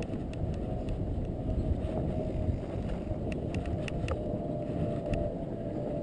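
Fat bike riding over snow: a steady low rumble of wind on the microphone and the wide tyres rolling, with a faint steady hum and scattered sharp clicks.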